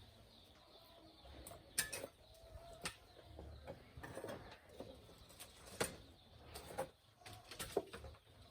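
Faint cooing of a dove, with scattered light knocks and clicks every second or two.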